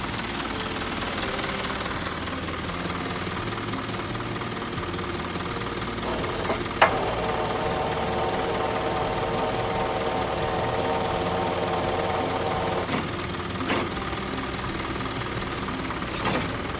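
Isuzu Elf truck's engine idling steadily. About seven seconds in, a steady whine of several tones starts with a click and stops with another click about six seconds later.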